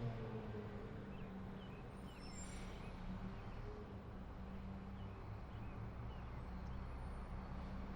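Garbage truck engine running at a steady idle, a low even hum. Faint bird chirps come through above it.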